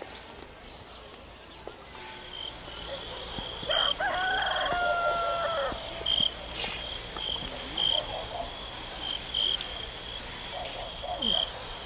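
A rooster crows once, a call of about two seconds starting about four seconds in that rises, holds and drops away. Behind it runs a thin, high, steady tone with brighter pips every second or so.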